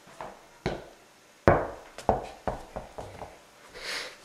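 Irregular knocks and thumps, the loudest about a second and a half in and a quick cluster just after two seconds, then a short hiss near the end.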